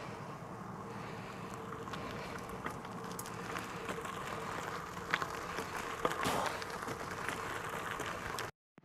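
A bicycle being ridden along a path: steady tyre and riding noise with a faint hum and a few sharp clicks from bumps, cutting off abruptly near the end.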